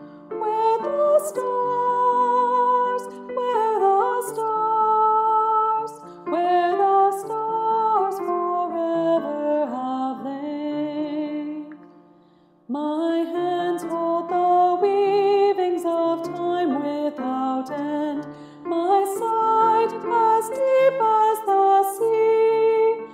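A hymn being sung, with held notes that waver in vibrato. The singing breaks off for about a second near the middle, then the next verse begins.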